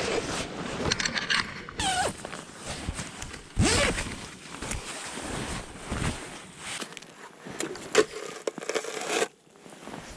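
Rustling, scraping and clicking of gear being handled, with a zipper-like rasp among them.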